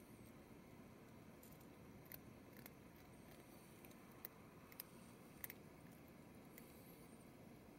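Cats crunching dry kibble: faint, irregular crunching clicks over near silence.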